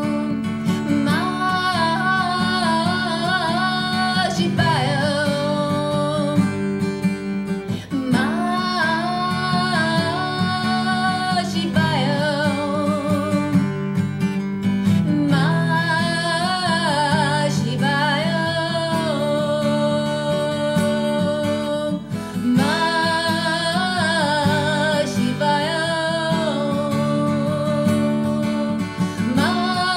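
A song with strummed acoustic guitar and a sung melody, sung in phrases of a few seconds with short breaks between them.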